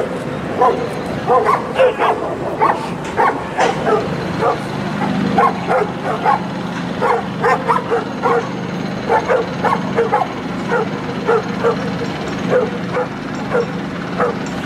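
A pack of stray dogs barking at a leashed police dog, several dogs at once, with short sharp barks and yips coming two or three a second over a steady low hum.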